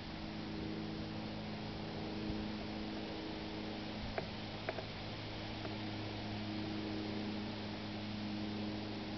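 A steady low hum made of several even tones over a soft hiss, with two faint clicks about half a second apart partway through.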